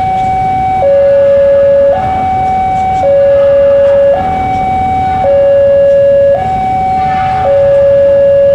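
Level-crossing warning alarm sounding as a train approaches: two electronic tones, one high and one low, alternating steadily, each held about a second.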